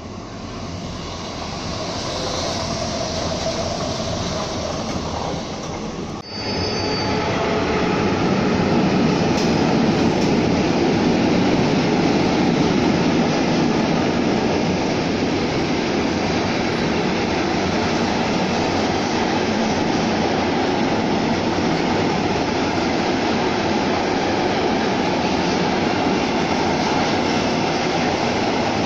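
Train noise growing louder over the first few seconds, then, after a sudden break about six seconds in, a freight train of tank wagons and box wagons rolling past at speed: a steady loud rumble and rattle of wheels on rail.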